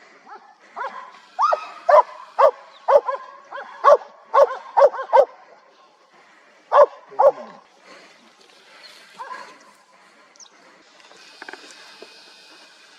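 Hunting dog barking: a run of about eight sharp barks in quick succession, two more after a short pause, then a few fainter ones.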